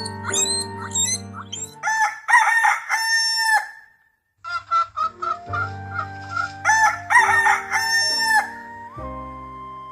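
Rooster crowing twice, each crow about a second and a half long, with background music underneath. There is a brief break of silence between the two crows.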